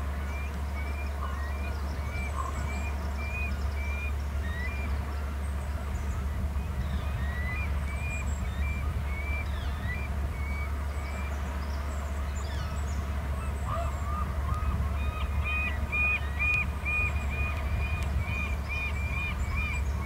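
A flock of birds calling in flight, a long series of short, repeated screepy calls that grow louder and more frequent toward the end as the birds come closer.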